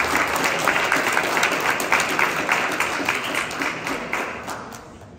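Audience clapping and applauding, dying away near the end.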